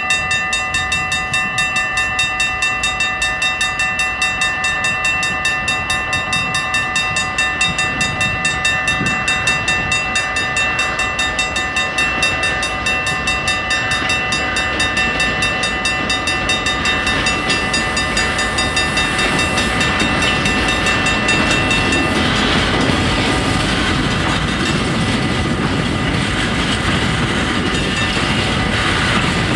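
Dutch level-crossing bells ringing in rapid, even strokes while the barriers are down. From a little past halfway a freight train's rumble rises and its tank wagons roll over the crossing, partly drowning the bells.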